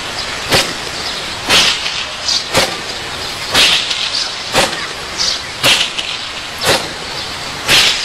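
Open palm slapping down hard on a padded bag laid on a stack of bricks: iron-palm conditioning strikes, about one a second in a steady rhythm, eight sharp slaps in all, each with a short hiss just before it.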